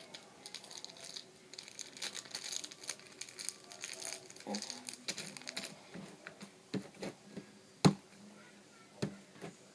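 Crinkly packet wrapper rustling and crackling as it is handled and squeezed, with scattered clicks. Just before the end comes one sharp knock, the loudest sound.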